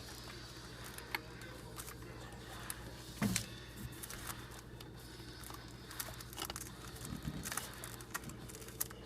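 Quiet, scattered clicks and light knocks of a spark plug wire boot being pushed and twisted onto a distributor cap terminal, over a steady low hum.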